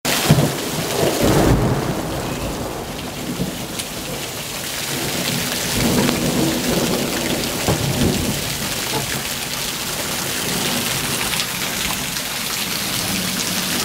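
Heavy rain pouring down and splashing into puddles, with thunder rumbling, loudest about a second in.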